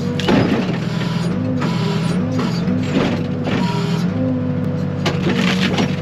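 Backhoe's diesel engine running under hydraulic load, its pitch dipping and recovering again and again as the boom pushes into a tree, with several sharp cracks of breaking wood and branches.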